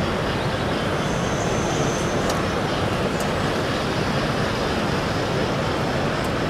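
Steady background din of a busy exhibition hall, an even wash of noise with no clear voices. A thin high whine sounds briefly about a second in, and a few faint clicks come through.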